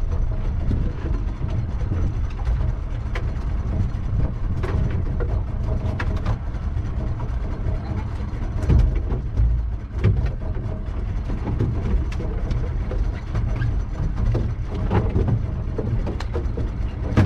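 A dorado is hauled into a panga. Scattered knocks sound on the boat, with a heavy thump about nine seconds in, over a steady low rumble.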